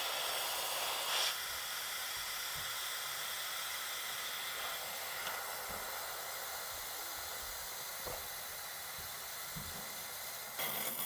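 Air hissing steadily out of a loosened air-release screw on top of a NuvoH2O Manor Trio whole-house filter housing, purging trapped air as the housing fills with water. About ten and a half seconds in, the hiss turns into an irregular sputter as water begins to come through the vent.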